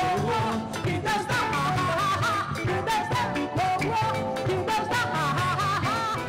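Live band playing an instrumental passage: an electric guitar lead with sliding, bending notes over a steady bass and drum groove.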